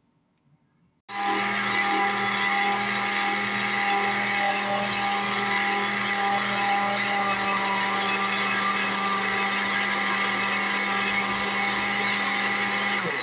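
Countertop blender with a glass jar switched on about a second in, running steadily at one speed as it blends a liquid mix of milk, cocoa, sugar and powdered milk, then switched off right at the end and winding down.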